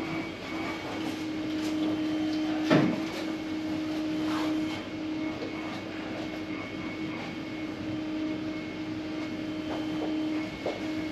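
Steady machine hum with one sharp knock nearly three seconds in and a few faint clicks.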